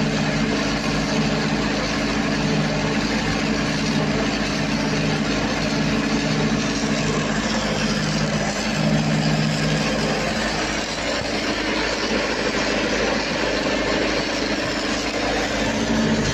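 Diesel engine of an engine-driven welder generator running steadily, with a constant low hum.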